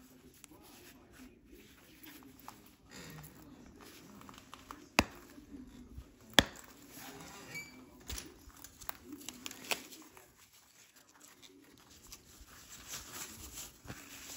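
Flint knapping with a copper flaker on heat-treated Flint River chert: light scraping and rubbing of copper on stone, with two sharp clicks about a second and a half apart around five seconds in as flakes snap off, and a fainter click a few seconds later.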